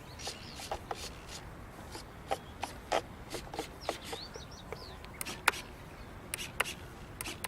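Irregular sharp clicks and knocks, a dozen or so scattered unevenly, over a steady outdoor hiss with faint high bird chirps.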